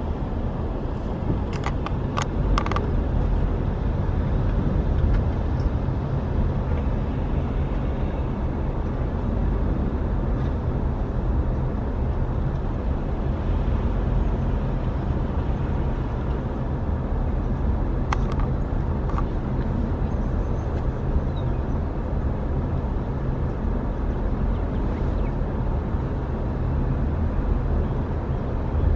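Car driving: a steady low rumble of engine and road noise, with a few brief clicks or knocks.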